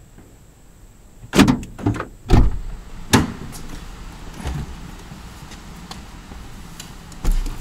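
A series of sharp clunks and knocks: three close together about a second and a half in, a louder one about three seconds in, a weaker one later, and another thump near the end.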